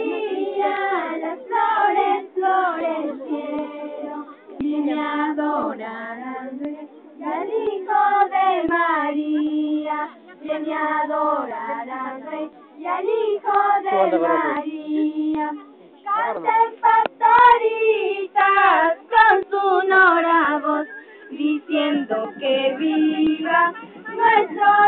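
A group of children and women singing together, phrase after phrase with short breaths between.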